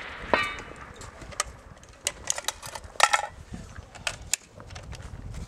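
Sharp mechanical clicks and clacks at irregular spacing, one a ringing metallic clink about a third of a second in and the loudest pair about three seconds in. The echo of a rifle shot fades away at the start.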